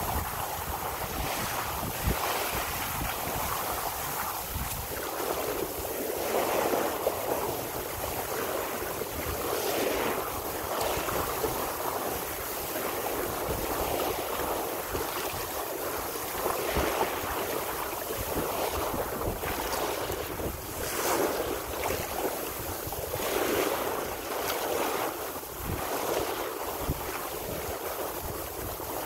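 Bow wave rushing and splashing along the hull of a San Juan 23 sailboat moving under sail, swelling and easing in uneven surges as it meets the chop. Wind buffets the microphone throughout.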